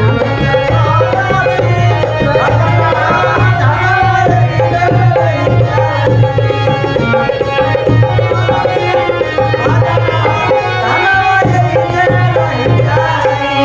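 Instrumental interlude of a devotional folk song: a hand drum keeps a steady repeating beat under a sustained, wandering melody line.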